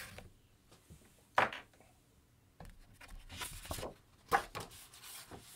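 Light handling sounds of objects being moved on a tabletop: a sharp knock about a second and a half in, then rubbing and rustling, and a few small clicks near the end.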